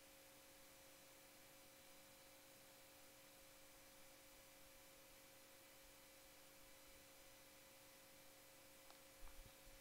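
Near silence: faint room tone with a steady low hum, and a soft low thump near the end.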